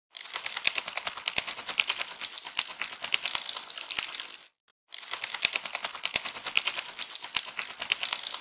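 Crackling sound effect: dense, irregular clicks and crackles in two runs, broken by a short silence about four and a half seconds in.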